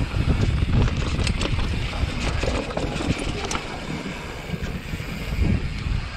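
Wind buffeting the microphone of a camera on a mountain bike riding fast down a rocky downhill trail, with scattered sharp clicks and rattles from the bike and tyres over stones.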